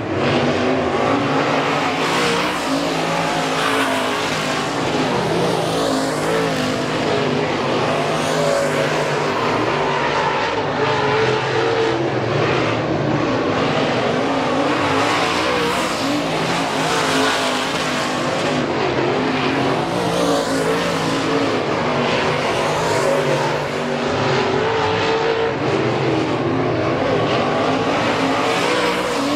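Engines of several dirt late model race cars running together as they circle the oval, their pitch rising and falling continuously.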